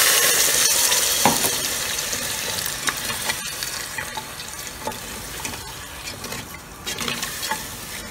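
Water poured into the hot, browned bottom of an aluminium pressure cooker sizzles loudly and then dies down, while a wooden spoon stirs the chicken and scrapes the stuck, toasted bits off the bottom, with scattered light knocks against the pot. It is the sound of deglazing the pan.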